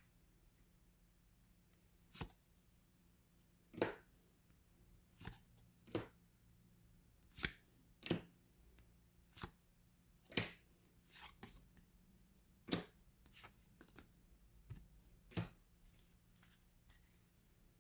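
Cardboard trading cards being flicked one at a time through a stack in the hands, a short sharp snap every second or so.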